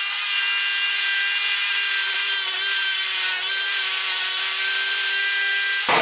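Power drill boring into old concrete, running steadily with a high whine over a grinding noise; it cuts off suddenly near the end.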